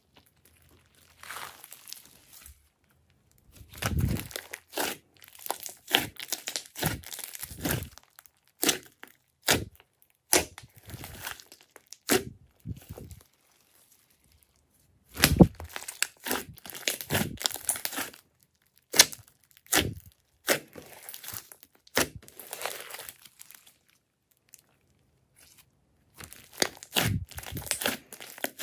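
Hands squeezing, pressing and stretching a large mass of glossy slime: irregular clusters of sharp, sticky crackles and pops, broken by a couple of short quiet pauses.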